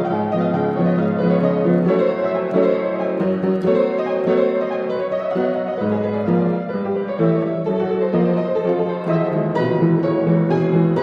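Slow instrumental music of held chords that change every second or so.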